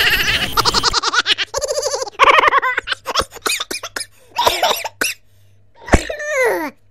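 Laughter and giggling in several short pulsing bursts, then a sharp knock and a sound sliding down in pitch near the end.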